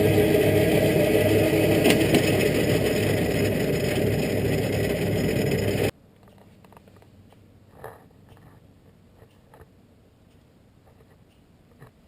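Metal lathe running under power with a steady hum, machining a chain sprocket; the noise cuts off abruptly about six seconds in. After that there are only faint light taps and clicks.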